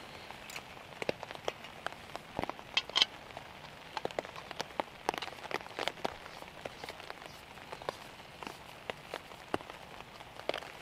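Pouring rain: a steady hiss with many irregular sharp taps of drops striking close by, the loudest few coming about three seconds in.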